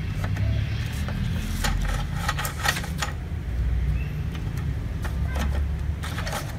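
Automatic document feeder of an HP Color LaserJet Pro MFP M181fw pulling an original through for a copy: a steady low motor hum with clusters of clicks and rattles from the rollers and paper, one about a second and a half in and another near the end.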